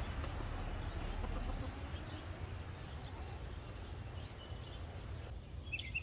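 Steady outdoor background noise with a low rumble, louder for the first couple of seconds. Birds give a few short chirps near the end.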